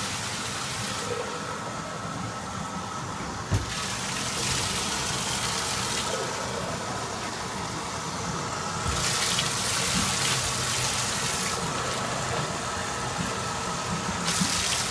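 Running bath water pouring in a steady hiss that grows brighter and duller by turns every few seconds, with a single sharp knock about three and a half seconds in.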